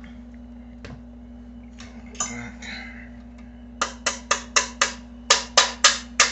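Boiled potato being grated on a metal box grater: a quick run of rasping strokes about four a second, starting nearly four seconds in, after a few lighter scrapes and a click.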